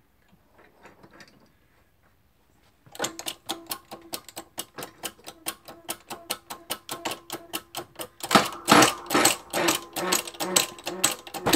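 Shop press being worked to push two bearings off a Shopsmith Mark V quill shaft: a rapid, even run of mechanical clicks, about four or five a second. The clicking starts about three seconds in and grows louder past the middle.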